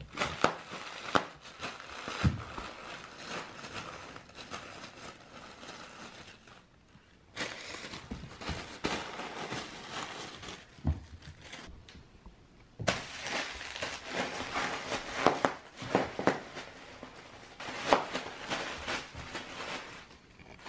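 Clear plastic sheet crinkling and crackling as a Bernedoodle puppy noses and chews at it, in bursts with a couple of short lulls. A few dull knocks are mixed in.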